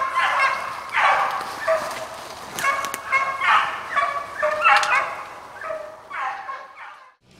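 Hunting hounds barking and baying, a run of short barks coming about one or two a second, which stops shortly before the end.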